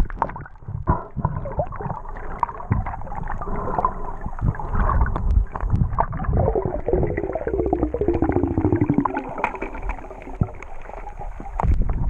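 Muffled underwater sound of water movement and bubbling, with a buzzy tone that slides down in pitch past the middle.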